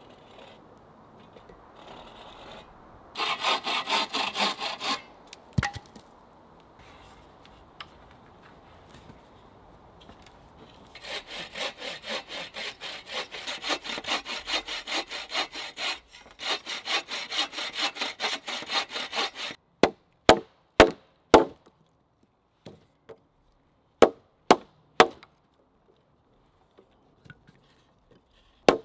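Bow saw cutting through a log in rapid back-and-forth strokes: a short bout, then a longer one with a brief pause. Then about seven sharp axe blows chopping a log-cabin notch into the log.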